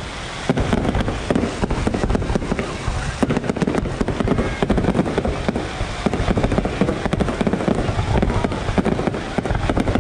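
A fireworks display going off without pause: a dense, rapid run of bangs and crackles.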